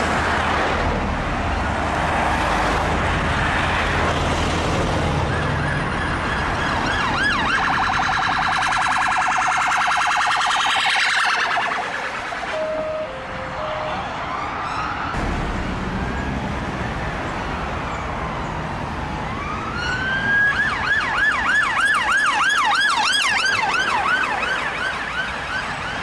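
Electronic siren of a Tesla police car, heard over the low rumble of queued road traffic. A very fast warble comes in after several seconds and fades out about halfway through. Near the end a rising wail turns into a yelp, which is the loudest part.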